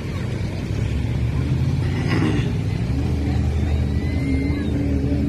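Mud-bog truck's engine running hard as it pushes through the mud pit: a low, dense drone that gets louder about a second in, then settles into a steady held-revs tone for the second half.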